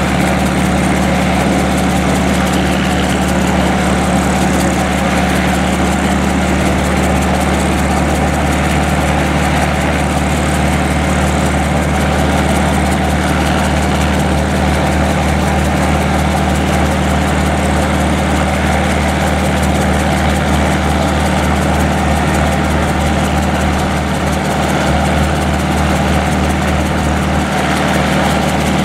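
Schweizer 300C light helicopter running steadily on the ground, its four-cylinder Lycoming piston engine at idle.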